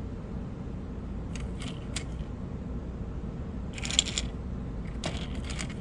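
Light clicks and a short clattering rattle of white dental crowns against a tray of small ceramic sintering beads as fingers pick through them, the sharpest click about four seconds in, over a steady low hum.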